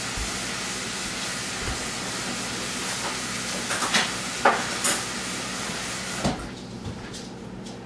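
Skillet of food sizzling on the stove with a steady hiss, with a few sharp clinks of utensils about four to five seconds in. The hiss cuts off suddenly with a thump about six seconds in.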